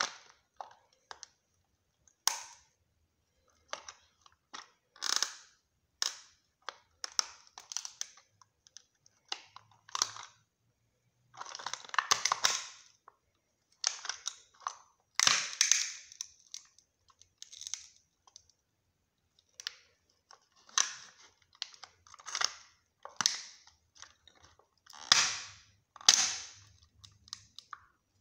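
Resin scale-model Honda Civic Type R cracking under a bare foot pressing down on it: irregular sharp cracks and snaps, with longer crackling crunches about halfway through and again near the end as the roof gives way.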